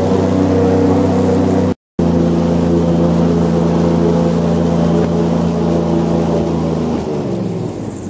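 Airboat engine and its large caged propeller running at a steady speed, a loud even drone. It cuts out for an instant about two seconds in, and the steady note breaks up near the end.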